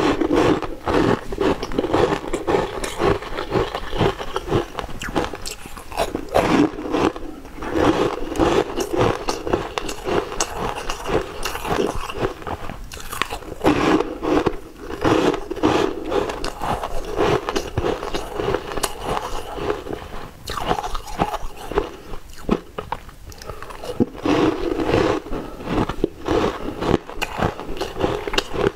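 Close-up crunching and chewing of frosty ice pieces being bitten and ground between the teeth: a dense run of crisp crunches with a few short pauses between bites.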